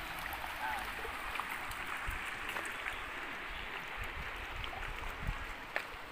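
Steady rush of running water, with a few faint clicks and knocks scattered through it.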